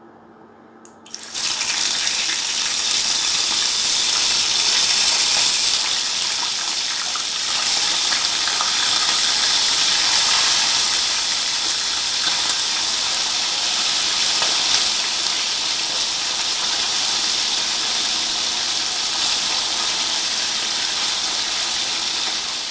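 Raw chicken pieces go into hot oil in a frying pan, and a loud, steady frying sizzle starts about a second in and keeps going.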